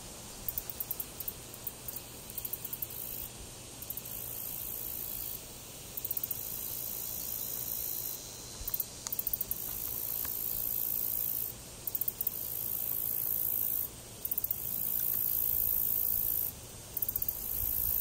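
High-pitched insect song, like a katydid or cricket: runs of rapid ticks alternate with longer steady buzzes, coming back every second or two.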